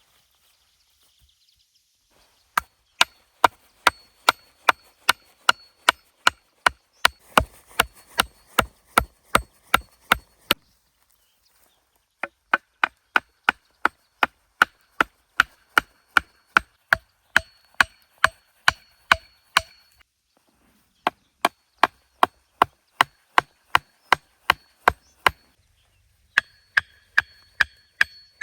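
A blade chopping wood with rapid, evenly spaced strikes, about three a second. The strikes come in four runs with short pauses between them, and many leave a faint ringing tone.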